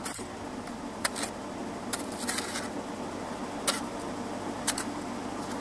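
Short-handled hoe (mammutti) chopping into dry, hard soil to dig a small pit, with about five sharp strikes, roughly one a second.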